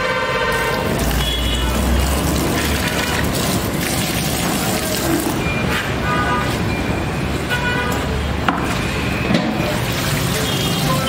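Rinse water splashing as shredded carrots are poured from a plastic tub into a metal basin, then running off as the basin is tipped to drain. Steady traffic noise runs underneath, with a low rumble passing twice and short pitched tones.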